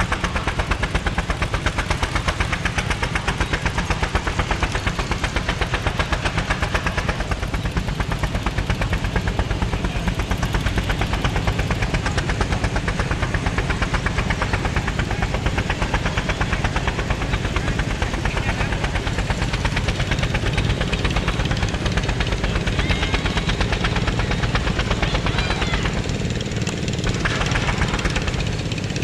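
Antique steam traction engine working under load pulling a gang plow, its exhaust chuffing in a rapid, steady beat.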